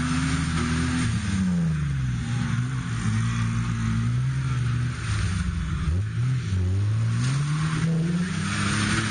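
An off-road 4x4's engine labouring in deep mud, revved hard, easing off about a second and a half in, then climbing again near the end, with a rushing hiss of spinning tyres throwing mud.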